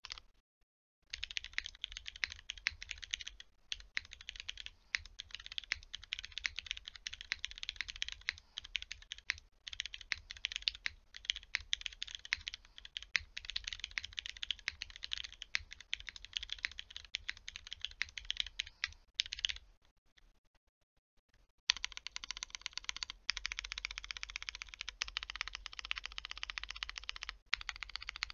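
Fast typing on a Geonworks F2-84 mechanical keyboard with lubed Cherry MX Black Hyperglide linear switches, GMK Honor keycaps, an aluminium plate and no foam: a dense run of key clacks. The typing pauses for about two seconds around two-thirds of the way through, then resumes.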